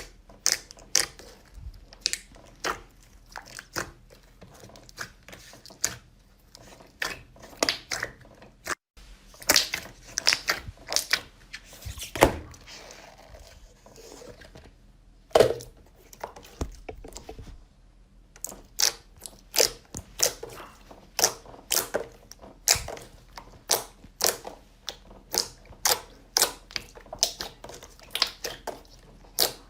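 Slime being squeezed and poked by hand, giving a run of sharp crackles and pops, one to three a second, with a brief break about nine seconds in.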